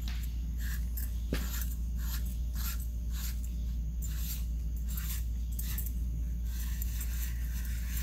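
Small metal parts handled in gloved hands: the threaded halves of an adjustable clutch throwout bearing being turned together, giving light metallic clicks and scrapes, with one sharper click about a second and a half in. A steady low hum runs underneath and is the loudest thing.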